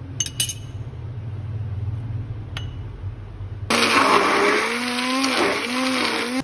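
Handheld stick (immersion) blender switched on about two-thirds of the way in, whirring loudly as it blends a thick yogurt and mayonnaise sauce in a plastic cup; its motor pitch dips and rises as the load changes. Before it starts, a few light clinks of glass over a low hum.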